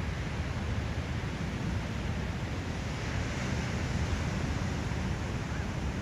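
Ocean surf breaking and washing up the beach, a steady rushing that swells a little about three seconds in, over a low rumble of wind on the microphone.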